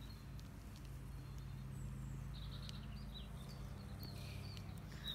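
Quiet outdoor ambience: a steady low rumble, with a few faint, short, high bird chirps from about two seconds in.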